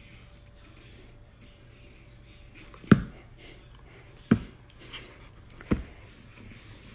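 Faint scratching of a felt-tip marker drawing on sketchpad paper. From about three seconds in it is broken by three sharp knocks, roughly a second and a half apart.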